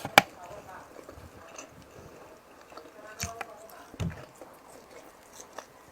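Close-miked eating sounds: chewing and mouth smacks while eating fish, with scattered short clicks, the loudest a sharp click just after the start and a dull thud about four seconds in.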